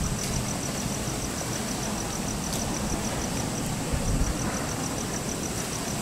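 Wind buffeting the microphone in an uneven low rumble, over which an insect trills steadily at a high pitch, about seven or eight pulses a second, dropping out briefly a little past halfway.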